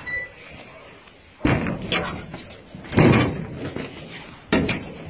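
Three loud bangs, about a second and a half apart, each dying away briefly.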